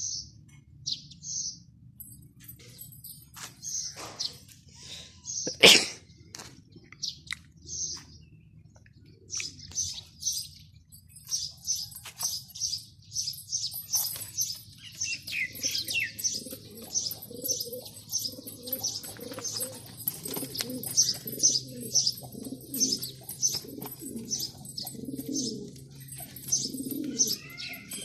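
Male pigeon cooing, low rolling coos repeating through the second half, against a small bird's high chirps repeating about twice a second. A sharp click sounds about six seconds in.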